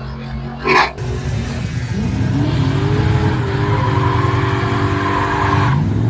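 A car engine accelerating hard: its pitch climbs, holds high for a couple of seconds, then drops near the end as a gear is changed and starts climbing again. A short knock sounds just under a second in.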